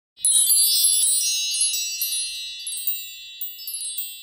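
Tinkling chime sound effect, like a wind chime or mark tree. A dense cluster of high bright strikes comes about a quarter second in, then scattered lighter strikes follow while the ringing slowly fades away.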